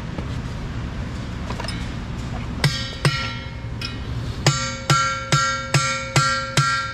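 Sledgehammer blows on a brass drift, driving a bearing race down into its bore in a Caterpillar D10R final drive hub, with the heavy hub ringing after each blow. There are two blows, a lighter tap, then a regular run of about seven blows, roughly two and a half a second, as the race is seated to the bottom.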